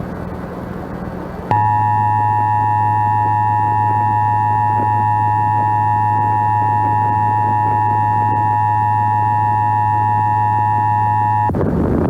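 Emergency Alert System attention signal: the steady two-tone alert (853 and 960 Hz together), starting abruptly after a short stretch of hiss and holding for about ten seconds before cutting off, with a low hum under it.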